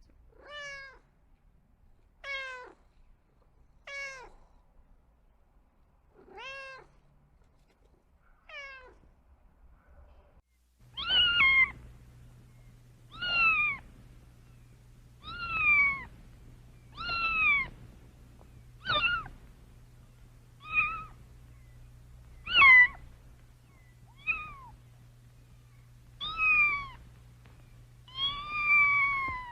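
Kitten meowing over and over, each meow rising and then falling in pitch. About five quieter meows come in the first ten seconds, then about ten louder, higher meows every couple of seconds, with a low steady hum behind them.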